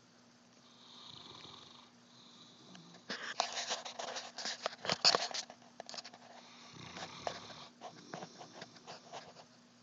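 St. Bernard snoring in its sleep: a soft breath about a second in, then a loud stretch of rapid rattling clicks about three seconds in, and another breath with scattered rattles near the end.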